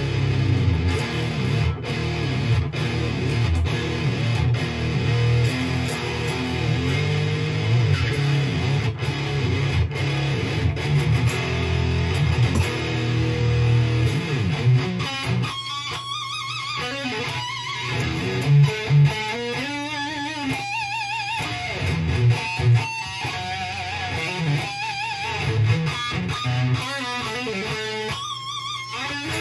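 Electric guitar played through a Randall RG100ES amplifier: low chugging riffs for the first half, then single-note lead lines with wavering bent notes from about midway.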